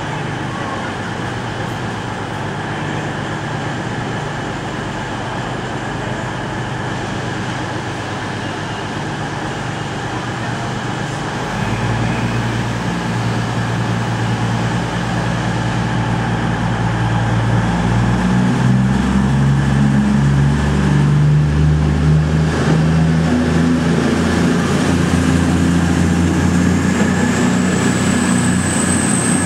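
Class 220 Voyager diesel-electric train's underfloor Cummins diesel engines idling, then powering up about twelve seconds in with a louder, deeper engine note that climbs again around eighteen seconds in as the train pulls away. A high whine rises near the end.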